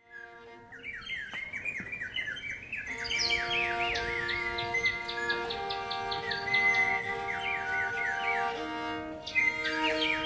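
Small handheld bird-call whistles warbling and trilling in imitation of birdsong, over steady held notes. The warbling starts about a second in and breaks off briefly near the end before resuming.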